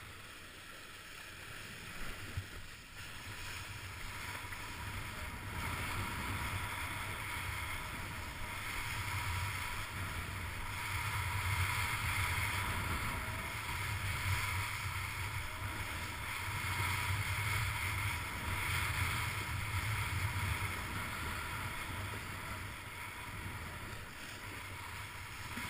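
Kiteboard riding fast over choppy water: water hissing and slapping under the board, with wind rumbling on the microphone. The rush swells and eases every few seconds as the board speeds up over the chop.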